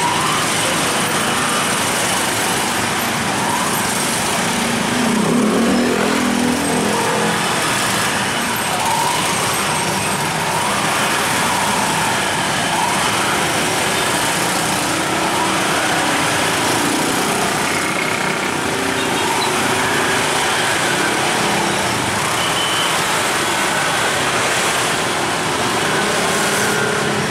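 Steady road traffic noise from motorcycles and cars in busy street traffic, with an engine revving up and dropping back briefly about five seconds in.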